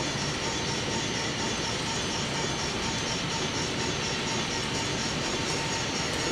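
Model Union Pacific diesel locomotives running on layout track: a steady running sound with a thin constant tone and a fast, even repeating pulse.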